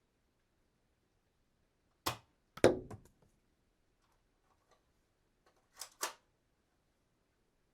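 Dart gun being cocked and shot: a sharp click, then about half a second later a louder snap with a short rattle after it, and near the end two quick clicks close together.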